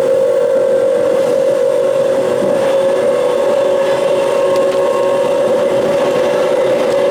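Mafersa 1701 electric multiple-unit train running with a steady drone ('roncando'): one strong, unchanging hum tone with fainter overtones above it, over a steady running noise.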